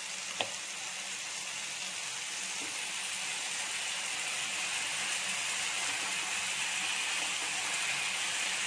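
Marinated chicken leg pieces sizzling in a hot ghee-greased grill pan as they are laid in, the sizzle growing gradually louder. A light click about half a second in.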